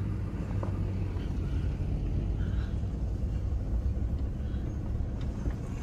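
Steady low rumble of a truck's engine and tyres, heard from inside the cab while it drives slowly over a gravel lot.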